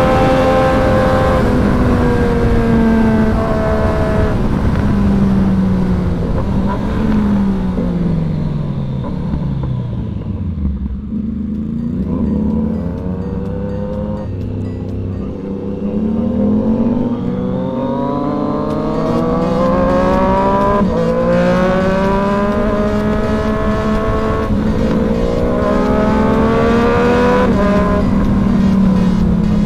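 Sport motorcycle engine under hard riding. It slows with the revs falling steadily, then accelerates through the gears, the pitch climbing and dropping back at each upshift several times in the second half.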